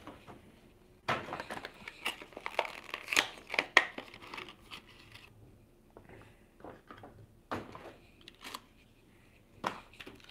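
Plastic blister pack and cardboard backing of a die-cast toy car crinkling and tearing as it is opened. A dense run of crackles and snaps runs from about a second in to about five seconds, then scattered clicks and rustles.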